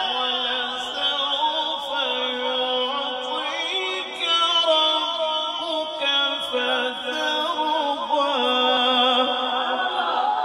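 A male qari's Quranic recitation (qirat) in the melodic, drawn-out tajweed style: one solo voice holding long, ornamented notes that step up and down and slide between pitches.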